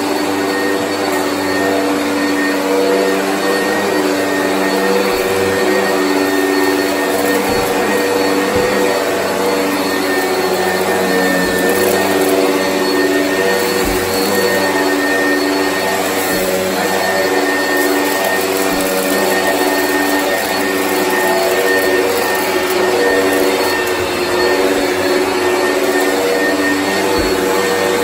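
Oreck upright vacuum cleaner running steadily while it is pushed over carpet: an even motor hum with a faint high whine that does not let up.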